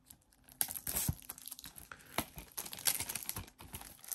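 Cellophane shrink-wrap being torn and peeled off a sealed plastic Blu-ray case: a run of irregular crinkling and crackling that starts about half a second in.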